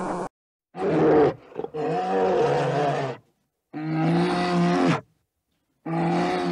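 Brown bear calling: four drawn-out calls with short silent gaps between them, the first brief and the others each lasting over a second.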